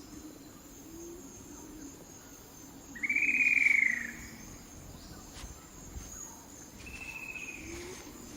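Two whistled bird calls: a loud, slightly arched note about three seconds in and a fainter, level then falling note near the end, over faint forest background.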